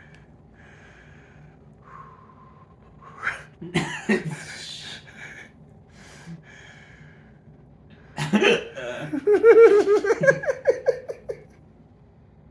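A woman hiccuping, with short, sudden hiccups a few seconds in, then a louder one followed by about three seconds of laughter in quick pulses.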